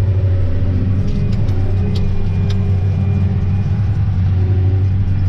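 John Deere 9620T tracked tractor's 500 hp engine running steadily under load while pulling a 30-foot reel disk, heard from inside the cab as a constant low drone. A few light ticks sound about one to two and a half seconds in.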